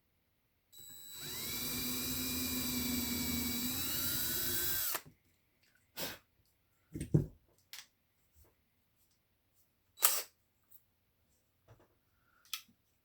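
Small electric drill running for about four seconds while boring a hole in air-dry clay. Its whine is steady, shifts in pitch near the end, then winds down and stops. A few sharp knocks and clicks follow, the sound of the drill and the piece being handled.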